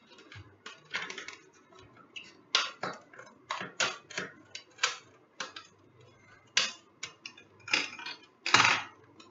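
Scissors cutting through a hard plastic blister pack: a string of irregular sharp snips and plastic crackles, the loudest and longest about 8.5 seconds in.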